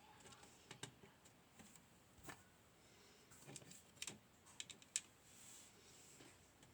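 Faint, scattered small clicks and taps of metal lock pins and tools being handled as a pin-tumbler lock is taken apart.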